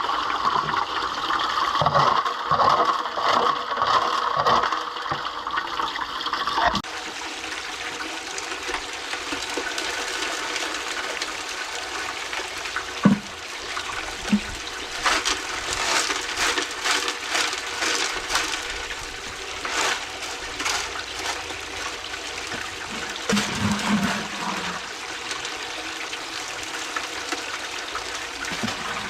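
Running, splashing water. The sound changes abruptly about seven seconds in, and a run of sharp splashes or knocks comes in the middle.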